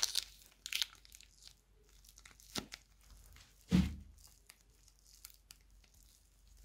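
Plastic bag crinkling as it is peeled off a lump of soft blue clay, strongest in the first second, then soft crackles as the clay is squeezed and pulled apart. A single low thump sounds just under four seconds in, louder than everything else.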